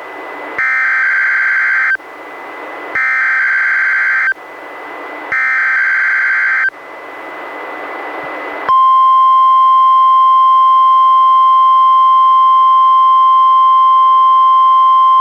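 NOAA Weather Radio Required Weekly Test heard through a weather radio receiver. It starts with three raspy SAME digital header bursts, each about a second and a half long, with static hiss between them. A little past halfway, the steady 1050 Hz warning alarm tone begins and holds.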